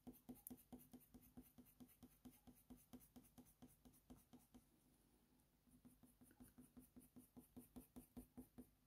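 Faint, quick strokes of a Faber-Castell Polychromos colour pencil scratching across hot-press watercolour paper, a few strokes a second, with a short lull about halfway through.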